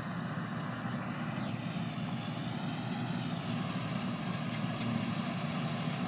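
New Holland TC57 combine harvester running steadily while cutting soybeans, a constant low drone of engine and threshing machinery.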